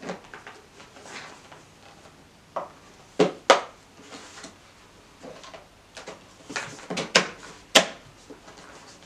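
Hard plastic clicks and knocks from handling a PAPR blower unit while its battery is fitted: scattered taps with a few sharp snaps, the loudest a pair a little past three seconds in and another near the end.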